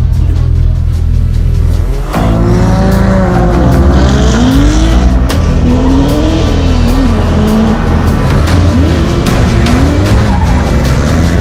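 Drift cars' engines revving up and down with tyre squeal, over background music, with a short break about two seconds in.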